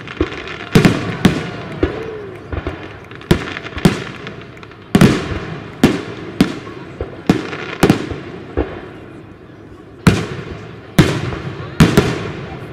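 Aerial firework shells bursting in a rapid, irregular series of sharp bangs, more than a dozen, each trailing off in an echo.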